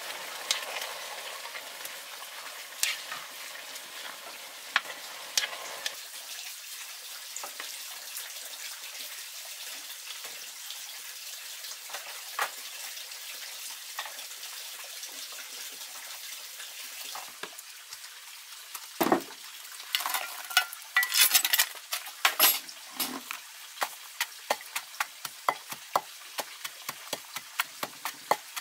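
Freshly steamed rice being stirred with wooden chopsticks in a large metal pot, with a steady hiss and scraping. Later there is a quieter hiss with sparse crackling clicks from the wood fire, a loud clatter of knocks about two-thirds of the way through, and then a run of sharp knocks about two a second.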